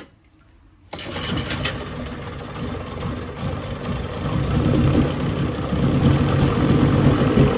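Old Mariner 20 hp two-cylinder two-stroke outboard, choked, pull-started and catching about a second in on its first run after a carburetor clean, then running and growing louder toward the end.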